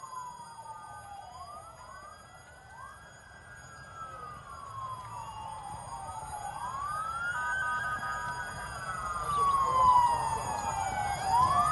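Several emergency vehicle sirens wailing at once, their pitches rising and falling slowly and out of step with each other, growing louder toward the end.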